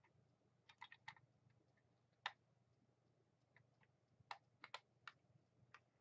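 Faint, irregular clicks and taps of a hard plastic toy being handled, about nine in all, the sharpest a little over two seconds in: the clear plastic cockpit of a Wonder Woman Invisible Jet figure being fiddled with after it has popped off.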